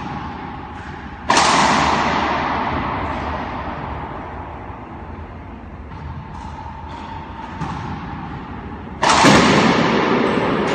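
Two hard racquetball shots in an enclosed court, each a sharp crack of ball off racquet and wall that rings on in the court's echo for several seconds. The first comes about a second in, the second near the end, with a few lighter taps between.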